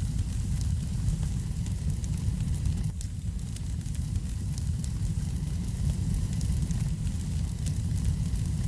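Wood fire burning in a fireplace: a steady low rumble of flames with frequent small crackles and pops of burning logs.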